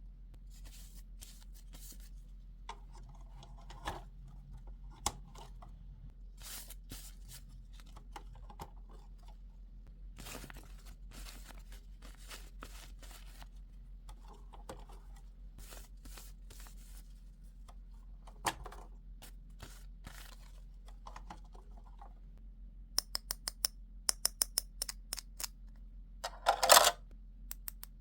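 Hands handling plastic toy pieces and packaging: scattered small clicks and light rustles, then a quick run of sharp clicks and a brief louder crinkle near the end.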